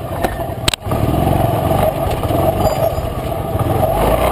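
Motorcycle engine running steadily at low speed, with one sharp click about three quarters of a second in.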